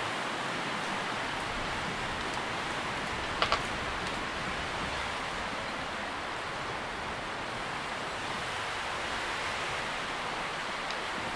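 Tree leaves rustling steadily in the wind, an even hiss-like sound. About three and a half seconds in, two sharp clicks come a split second apart.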